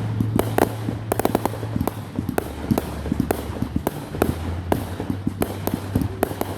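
Fireworks going off in a rapid, irregular string of sharp pops and cracks, several a second, over a steady low hum.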